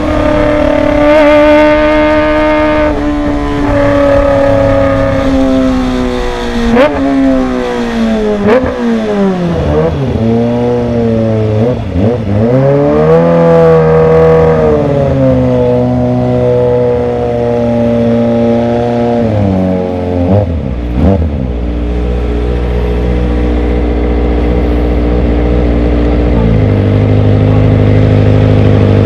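Kawasaki ZX-25R's 250 cc inline-four through a Villan Z1 underbelly exhaust, running loud at high revs. The pitch sinks slowly, then dips and climbs sharply several times through the middle, and holds a steady lower note near the end.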